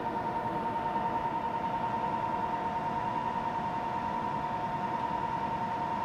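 CNC mill spindle running steadily with a constant whine, spinning an end mill as it is edged toward the aluminium stock to touch off the part.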